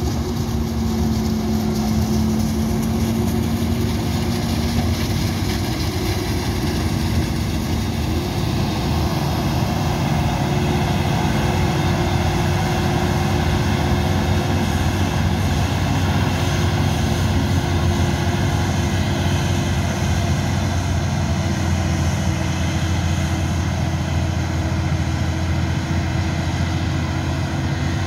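Claas Jaguar 980 forage harvester and tractors running steadily while chopping maize, a continuous heavy engine drone. A higher engine tone fades away over the first five seconds or so.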